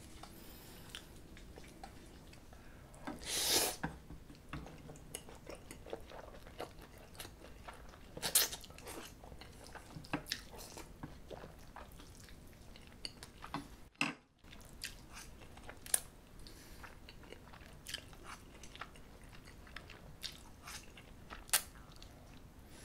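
Close-miked eating: a person slurping spicy cold buckwheat noodles (bibim naengmyeon) and chewing them together with grilled bulgogi, a run of wet chews and smacks with a few longer slurps, the loudest about three and a half seconds in and again around eight seconds in.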